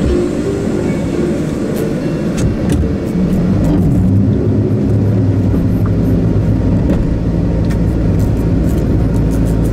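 Car engine heard from inside the cabin, revving up about three to four seconds in and then held at higher revs as the driver tries to drive the car free after a wheel has slipped off the track and left it stuck.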